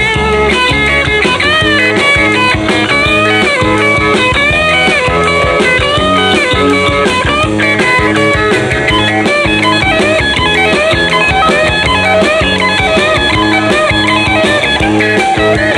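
Rock music instrumental break: a lead electric guitar plays bending, arching lines over bass and drums.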